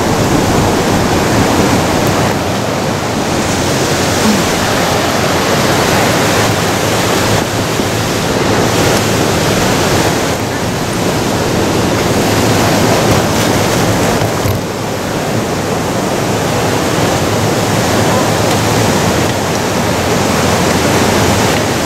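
Ocean surf breaking and washing over rocks along the shore, a loud, steady rush that swells and eases slightly.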